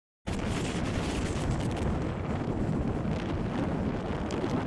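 Strong gusty wind buffeting the microphone on a moving motorcycle: a dense low rumble with scattered sharp crackles, cutting in abruptly just after the start.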